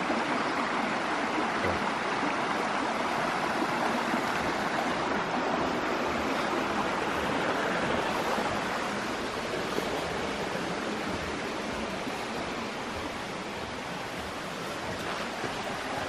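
Creek water flowing steadily over rocks, a continuous rushing hiss that grows a little fainter after about eight seconds.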